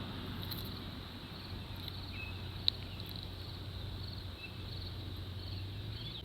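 Insects chirping in a steady, evenly pulsing high band over a low outdoor hum, with one sharp click a little under halfway through.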